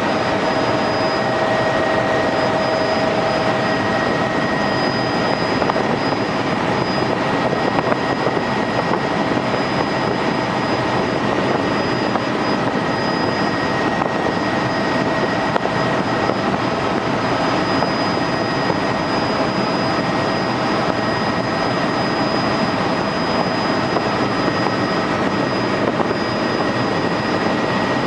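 Helicopter in flight: steady, unbroken engine and rotor noise with a few constant high tones running through it.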